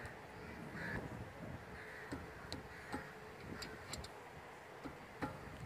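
Scattered light metallic clicks and ticks from a wrench working a brake caliper bolt.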